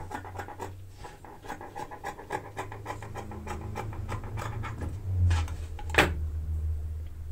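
Scissors snipping through a cotton rag in a quick, even run of cuts, then a single sharp click about six seconds in, over a steady low hum.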